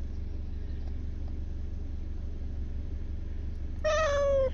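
Steady low rumble inside a car, with one short cat meow near the end that falls slightly in pitch.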